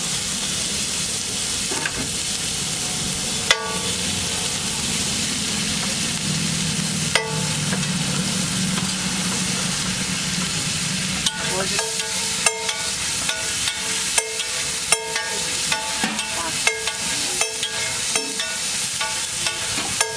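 Food frying with a steady sizzle in a hot metal pan while a metal spatula stirs it. A few sharp clinks come early on; from about halfway, the spatula strikes the pan repeatedly with ringing clinks, about two a second.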